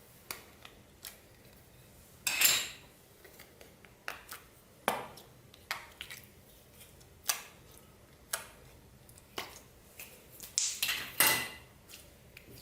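Irregular clinks and knocks of hard objects, such as a utensil or plastic containers, against a container: about a dozen separate strikes, the loudest about two seconds in and near the end.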